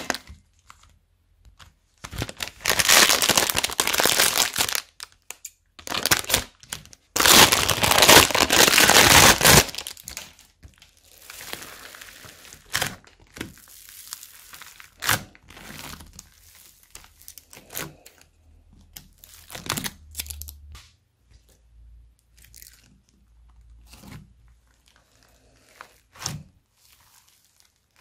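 Plastic bags of foam beads crinkling as they are squeezed and emptied into a bowl, in two long loud stretches about three and seven seconds in. After that come quieter, scattered crackles and crunches as fingers press into heaps of foam beads.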